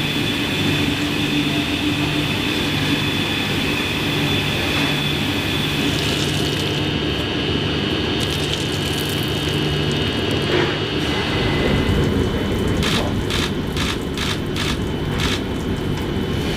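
Loud, steady machine noise: a low hum and a rush of noise under several high, whining tones. A quick run of about six sharp clicks comes near the end.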